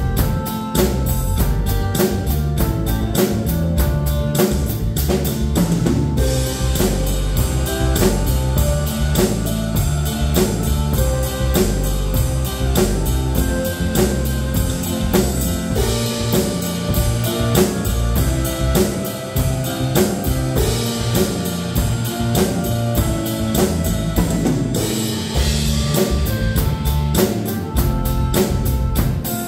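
A Tama drum kit played with a steady beat of kick, snare and cymbals along to a recorded song backing track with guitar.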